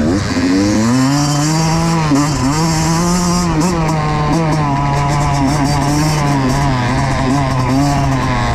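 Two-stroke single-cylinder engine of a Kawasaki KX85 dirt bike under way: it revs up about a second in, then holds fairly steady revs with small rises and dips.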